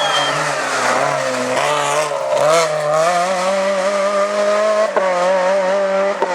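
Rally car engine running hard on a stage, its pitch dipping then climbing and holding high, with two sharp cracks, one about five seconds in and one near the end.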